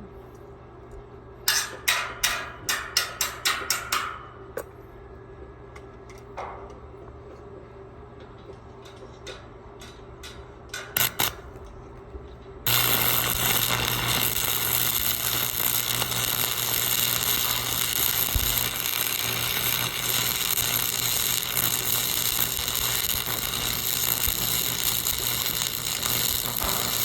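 A quick run of about ten hammer strikes on steel, two more a few seconds later, then a steady loud hissing crackle of arc welding that starts abruptly about halfway through and keeps going.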